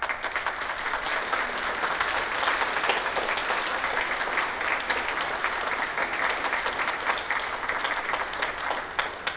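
Audience applauding: many hands clapping, starting all at once and running dense and steady, then thinning to a few scattered claps near the end.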